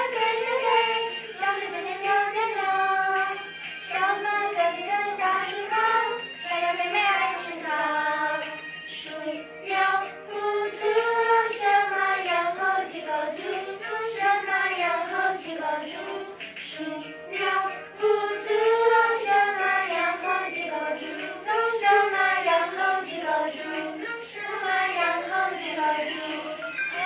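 A group of young children singing a song together.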